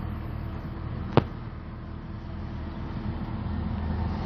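Car engine and road noise heard inside a moving car's cabin: a steady low hum that grows slightly louder near the end, with one sharp click about a second in.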